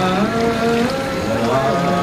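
Slow singing or chanting by voices in long held notes that step from pitch to pitch, without clear words.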